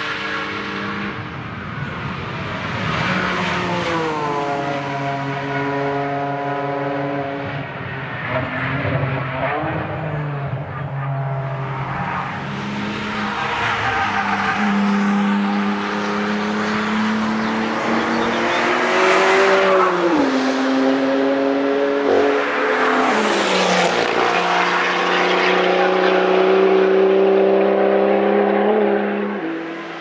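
BMW cars driven hard on a race track, passing one after another; their engine notes climb and fall as they change gear and go by, with some tyre noise.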